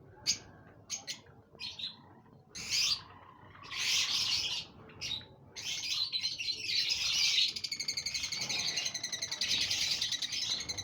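Java sparrow chicks calling: a few short, separate chirps at first, then longer bursts of calling that run together from about halfway into a continuous, rapid chatter of repeated high notes.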